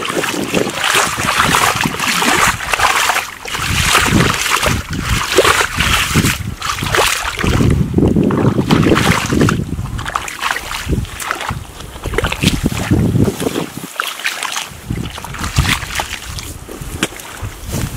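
Shallow muddy water sloshing and splashing irregularly as bare feet and hands churn and dig through the mud.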